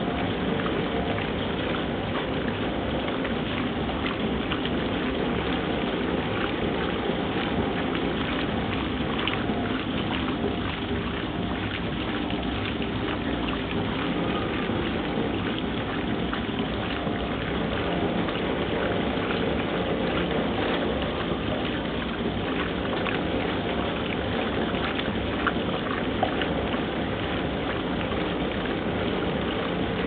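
1971 Simpson Fluid Drive top-loading washing machine agitating a load: its motor and drive run steadily under the churning and sloshing of water and clothes in the tub.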